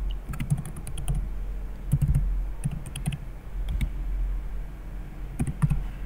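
Computer keyboard being typed on: short runs of keystrokes with pauses between them, over a low steady hum.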